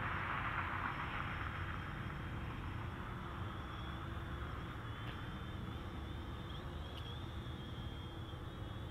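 Faint, wavering high-pitched whine of a quadcopter drone's propellers, heard from the ground over a steady low outdoor rumble.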